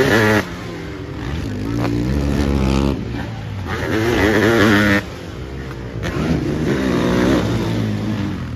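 Sidecar motocross outfits' engines revving hard as they race past on a dirt track, the engine note rising and falling with the throttle. The sound changes abruptly a few times, about half a second, three seconds and five seconds in.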